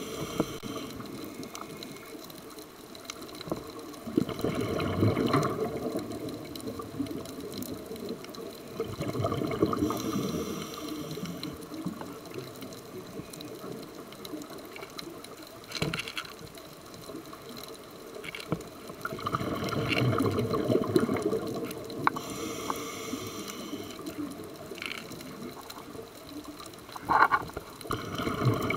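Scuba diver's breathing heard underwater: the regulator's exhaled bubbles rumble past in rough bursts a second or two long, four or five times, several seconds apart, over a steady underwater hiss.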